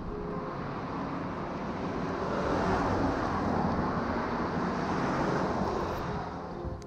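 Motor vehicle running, with a steady hum and road noise that grows louder toward the middle and fades near the end.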